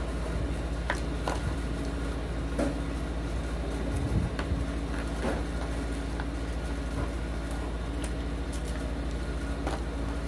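Steady low hum and rumble of background machinery, with scattered light clicks and taps of plastic toys and food being handled at the table.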